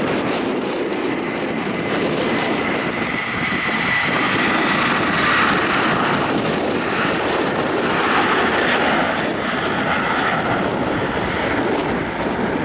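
Airbus A330-200 twin-engine jet airliner at takeoff thrust: a steady, loud jet engine noise, with a thin high whine held for a few seconds in the first half.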